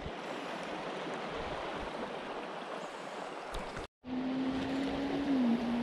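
Shallow river water running over stones in a riffle, a steady rushing noise. It breaks off for a moment about four seconds in, and then a steady low hum sets in under the water, dipping slightly in pitch a second later.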